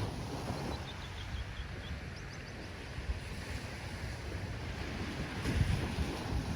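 Ocean surf washing steadily, with wind buffeting the microphone in low gusts.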